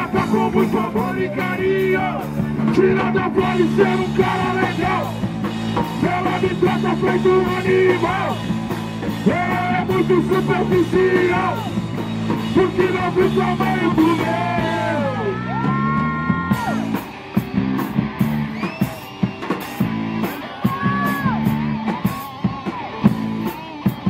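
Punk rock band playing live: a man singing over electric guitar, bass guitar and drum kit. About fifteen seconds in, the singing stops and a guitar break with bent, gliding notes takes over above the drums.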